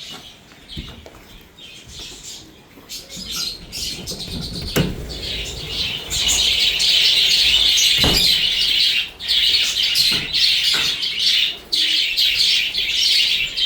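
A flock of caged budgerigars and lovebirds chattering and chirping. The chatter grows denser and louder about six seconds in, with two sharp knocks among it.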